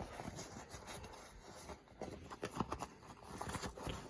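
Faint rustling and a few soft clicks as a roll-up tool bag holding a set of wrenches is rolled up by hand.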